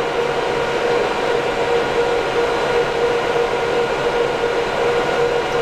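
Cooling fans of a pair of MCL Ku-band traveling-wave-tube amplifiers running: a steady whir with a constant mid-pitched hum in it.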